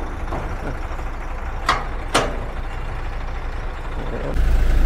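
Heavy truck's diesel engine idling with a steady low rumble that grows louder near the end. Two sharp knocks about half a second apart come around two seconds in.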